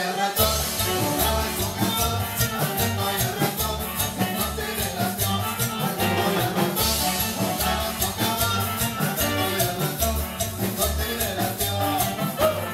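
Live band playing Latin dance music: an accordion melody over a throbbing bass line and drums, with a quick, steady beat of percussion strikes.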